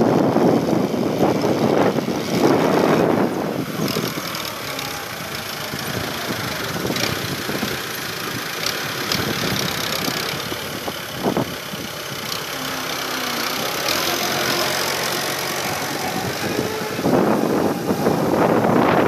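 Fiat 640 tractor's four-cylinder diesel engine running under load as it pulls a tine cultivator through the soil. Wind buffets the microphone, loudest in the first few seconds and again near the end.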